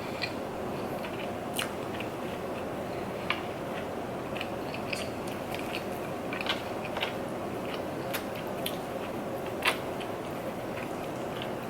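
Close-miked chewing and biting of food, with scattered sharp crunches and mouth clicks a few times a second, over a steady background hiss.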